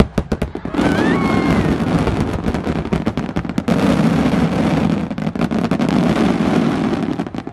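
Aerial fireworks bursting: a dense run of rapid bangs and crackles from exploding shells.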